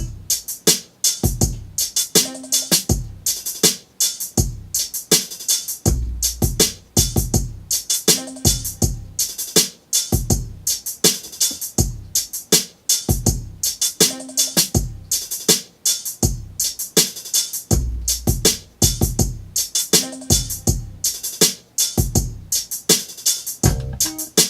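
Hip-hop drum track playing back from a Native Instruments Maschine MK3: a drum-machine pattern of deep kicks that drop in pitch under quick, steady hi-hats.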